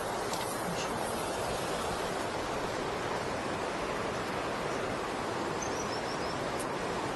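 Steady rush of river water pouring over a weir. Near the end a series of short, high chirps repeats several times a second.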